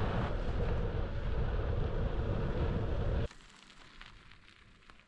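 Loud, steady rushing noise with a heavy rumble, cutting off suddenly about three seconds in to a faint background with a few light ticks.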